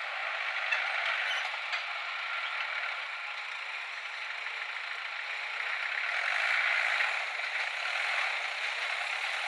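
Old Mahindra tractor running steadily with a clattering rattle, heard thin with no deep engine sound.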